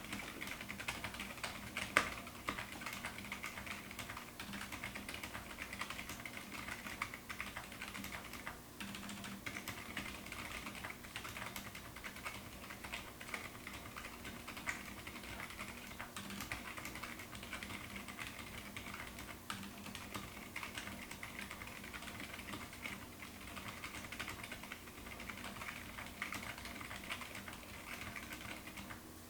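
Continuous typing on a Magicforce 68 mechanical keyboard with stock Gazzew Boba U4 silent tactile switches and MT3 dev/tty keycaps: a steady stream of quiet key presses, with one sharper knock about two seconds in.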